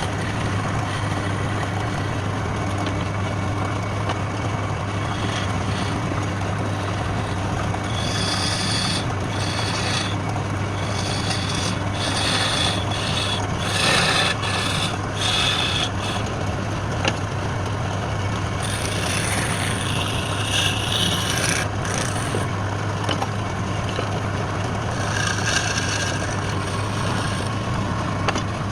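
Wood lathe running with a steady hum while the spinning wood is worked. Scraping and rasping comes in bouts from about eight seconds in, most of all around the middle and again near the end.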